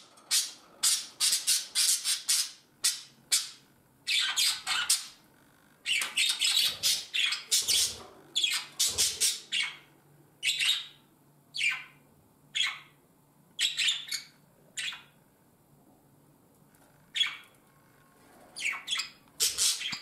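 Budgerigar calling: short, sharp calls in quick runs through the first half, then single calls spaced about a second apart.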